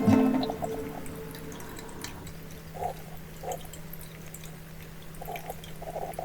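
A pause in soft acoustic-guitar background music: the last notes die away at the start, leaving a faint steady hum with a few soft drip-like plops, four in all.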